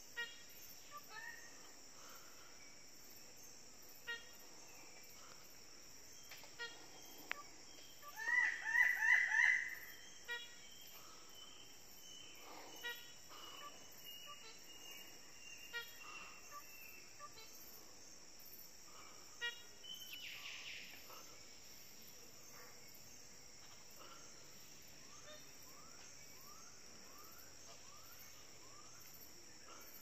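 Lesser bird of paradise calling: a quick series of about six loud, harsh repeated calls some eight seconds in, over a steady high insect drone. Other birds add scattered short notes, a long thin falling whistle, and a run of short rising notes near the end.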